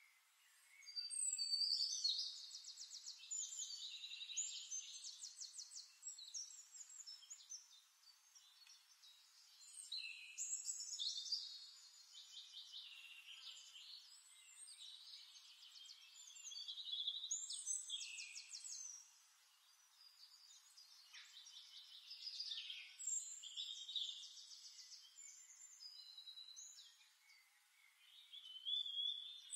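A songbird singing long phrases of rapid trills and chirps, in several bouts of a few seconds each with short pauses between them.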